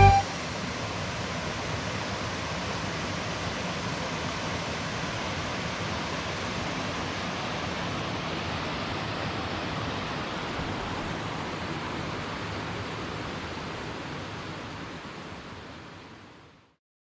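Steady rushing of flowing river water, fading out near the end.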